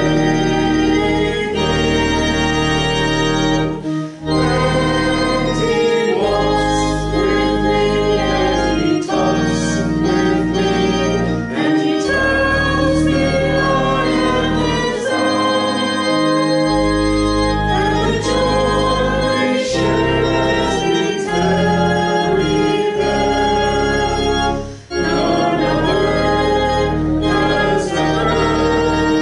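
A hymn sung to organ accompaniment: voices singing over sustained organ chords.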